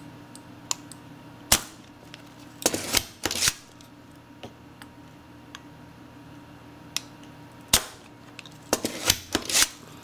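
Spring-loaded desoldering pump snapping as its plunger is released to suck molten solder from a mouse switch's pins, with clicks of the plunger being handled. There is one sharp snap about a second and a half in, a quick cluster of snaps around three seconds, another single snap near eight seconds and a second cluster near the end.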